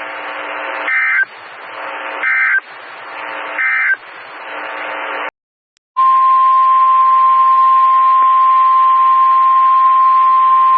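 NOAA Weather Radio end-of-message signal: three short bursts of SAME digital data tones about 1.3 s apart over receiver hiss, closing a warning broadcast. After a brief silence, the steady 1050 Hz Warning Alarm Tone starts about six seconds in, the alert signal that introduces the next warning.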